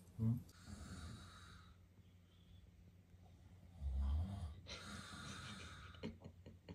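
A Chihuahua snoring in its sleep: two long snores about four seconds apart, each opening with a short low rumble.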